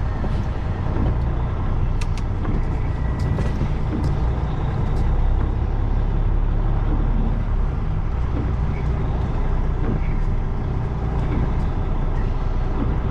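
Semi truck's diesel engine running steadily at low speed, with a deep rumble, and a few light clicks between about two and five seconds in.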